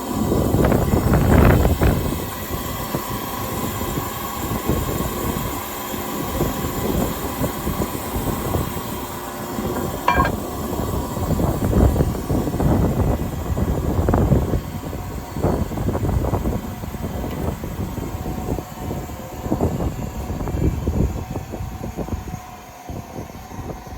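Martin sliding-table circular saw with a 40 cm blade and 3 kW motor running, its steady hum swelling again and again as the blade cuts wood.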